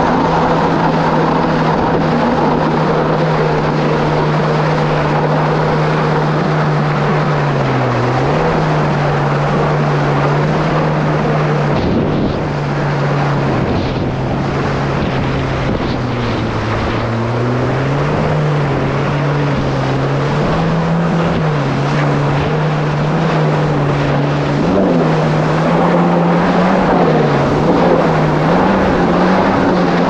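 Kawasaki SX-R 1500 stand-up jet ski's four-stroke four-cylinder engine running hard under way, over a loud rushing noise. Its pitch dips briefly twice as the throttle eases and picks back up, then wavers up and down near the end.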